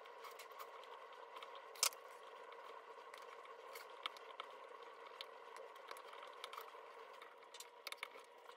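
Faint clicks and scrapes of a small screwdriver prying spot-welded nickel strips off the 18650 cells of a battery pack, metal on metal. A sharper click comes about two seconds in, with a few more near the end, over a faint steady hum.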